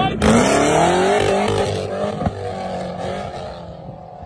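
Off-road buggy's engine revving hard with a climbing pitch as it powers up a dirt climb, then fading as it pulls away. A single sharp knock comes about two seconds in.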